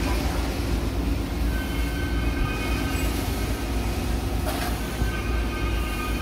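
Steady low rumble of running factory machinery, with faint steady whines above it and a short knock about halfway through.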